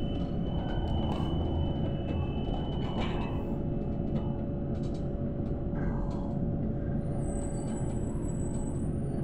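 Cabin noise of a PKTS-6281.01 'Admiral' electric trolleybus on the move: a steady rumble from the ride with a steady whine, and scattered light clicks and rattles.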